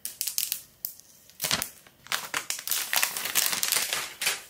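Packaging of an iPhone 12 Pro Max box crinkling and rustling as the box is handled, in quick crackly bursts that grow much denser after about a second and a half.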